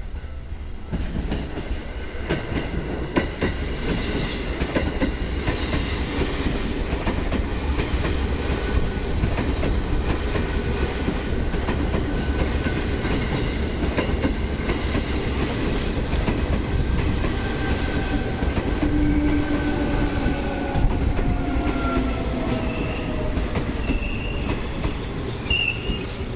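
Seibu 2000 series electric train running along the platform, wheels clattering over rail joints under a steady rumble. A whine slowly falls in pitch about two thirds of the way through.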